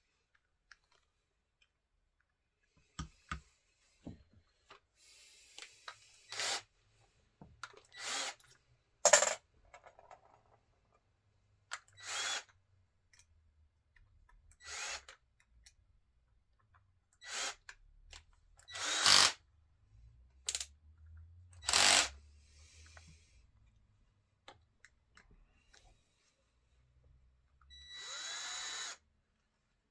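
Small power drill run in a dozen short bursts of under a second each. The last burst, near the end, is longer, with a rising motor whine. The bursts come while a Stihl Smart Connector is being fixed to a chainsaw.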